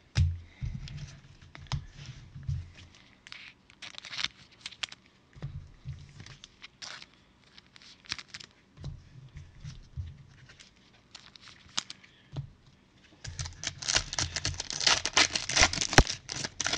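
Gloved hands handling trading cards, with scattered light clicks and taps. Then, about three seconds from the end, a card pack's plastic wrapper is torn open and loudly crinkled for a few seconds.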